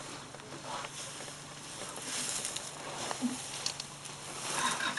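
Rustling and crackling of grass and brush as African elephants move and feed through it close by, in irregular bursts that swell about two seconds in and again near the end.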